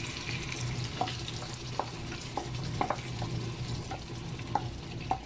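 Chicken pieces sizzling in a pan as thick tomato-and-onion paste is scraped into it from a bowl with a wooden spoon, with about a dozen light knocks of the spoon against the bowl and pan.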